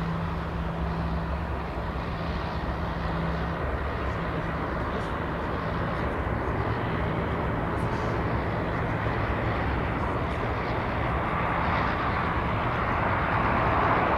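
Boeing 747-400 freighter's four jet engines on final approach, a steady drone that grows slowly louder as the aircraft nears, over a steady low hum.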